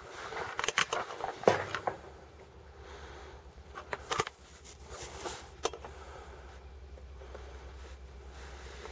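Rustling and clicking of handling and movement, densest in the first two seconds, with sharper clicks about four and five and a half seconds in. A low steady hum starts about one and a half seconds in.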